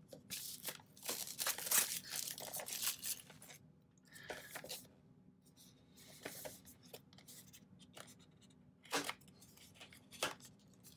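Plastic shrink-wrap being cut and torn off a small cardboard screen-protector box, with crinkling for about the first three and a half seconds. Then quieter handling of the box, with a couple of short sharp scrapes near the end as the inner tray is slid out of its sleeve.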